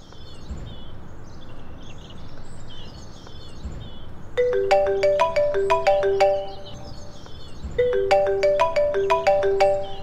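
An iPhone ringing with an incoming call: a short melodic ringtone phrase starts about four seconds in and plays twice, over birds chirping.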